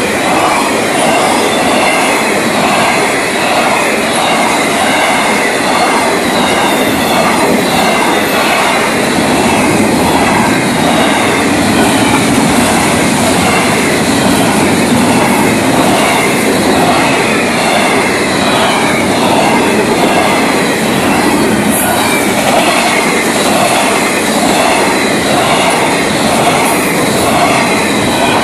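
Florida East Coast Railway freight cars rolling past at speed, a loud, steady rumble with a regular clickety-clack of wheels over the rail joints and a high metallic squeal riding over it.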